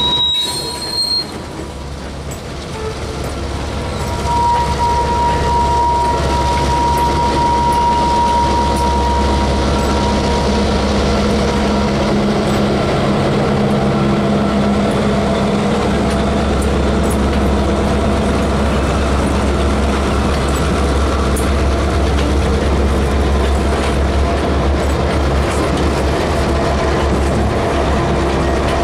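Norfolk Southern diesel locomotives passing close by under power, engines giving a steady low drone over the clatter of the train. A high, steady steel-wheel squeal sounds from about four to ten seconds in.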